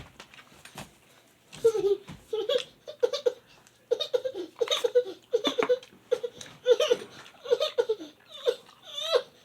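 Young child laughing in a run of short, high-pitched giggles that begins about one and a half seconds in.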